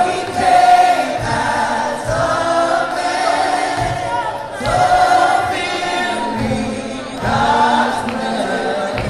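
A large church congregation singing a gospel worship song together, many voices in sustained sung phrases, with low beats of musical accompaniment underneath.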